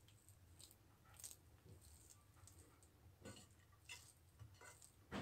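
Near silence with faint soft squishes and rustles of a hand rubbing butter through steamed vermicelli on a plate, with scattered small clicks and a slightly louder one near the end.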